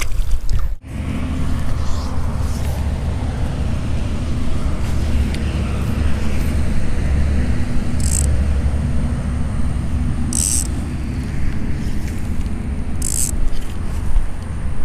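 Steady low rumble of distant road traffic, with three short zipping swishes about eight, ten and thirteen seconds in as fly line is stripped in through the rod guides to work a topwater popper.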